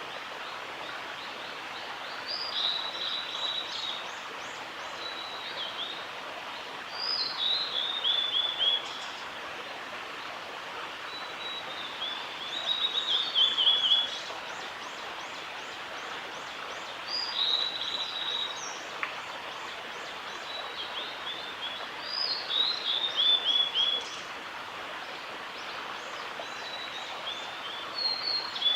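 Male blue-and-white flycatcher singing: phrases of clear whistled notes, each ending in a quick falling run, repeated about every five seconds over a steady background hiss.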